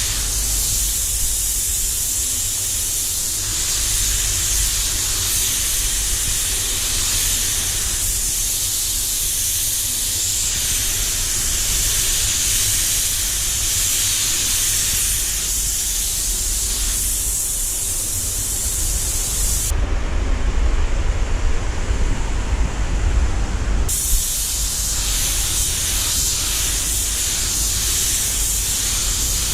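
DeVilbiss DV1 HVLP spray gun hissing steadily as it lays metallic base coat on a car panel, over the low rumble of the booth's air system. From about 20 to 24 seconds in, the high hiss drops away and a rougher, fluttering air noise takes its place.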